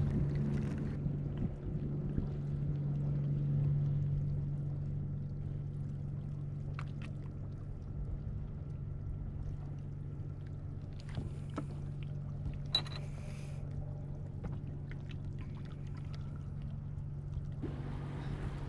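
Sailboat's inboard engine running with a steady low hum, with a few faint ticks over it. Near the end a hiss of wind and water comes up.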